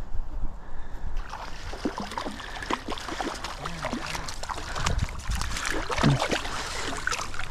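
Stream water splashing and gurgling close by, full of quick irregular splashes, starting about a second in.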